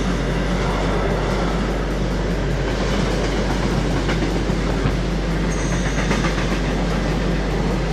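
Freight train of tank wagons passing close at speed: a steady, loud rolling noise of the wagon wheels on the rails.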